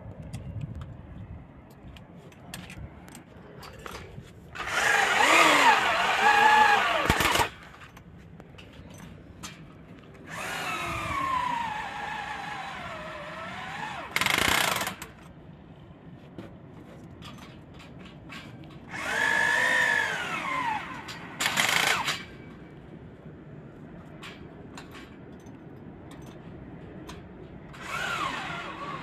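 Electric hammer drill boring into a concrete roof slab beside a steel mounting post's base plate. It runs in several separate bursts lasting up to a few seconds, with short pauses between, and its motor whine rises and falls as it loads up.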